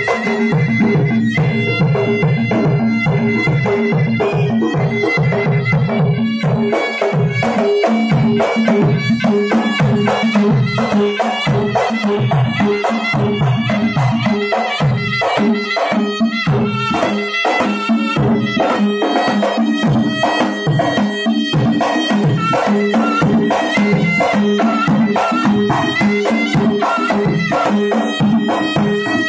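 Gendang silat ensemble: two double-headed barrel drums (gendang) struck with the hands in fast interlocking strokes, over a sustained reedy melody line from a serunai. Both play without a break.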